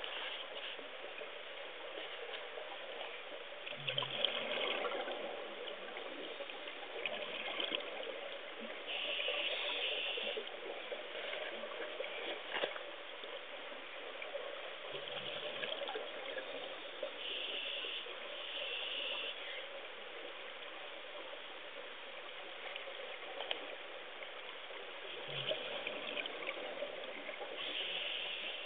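Muffled underwater noise picked up by a submerged camera: a steady watery hiss, with brief brighter rushes of hiss every few seconds and a few faint low thumps.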